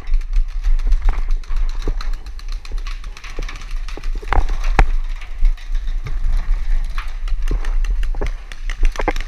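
Rapid, irregular pops of paintball markers firing, some close and some further off, over a steady low wind rumble on the camera microphone.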